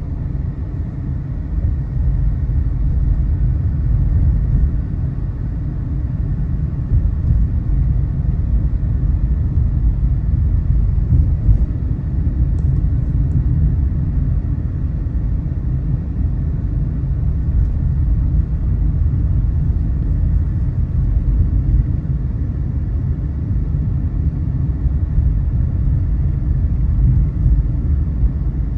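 Car driving along a road: a steady, loud low rumble of engine and road noise.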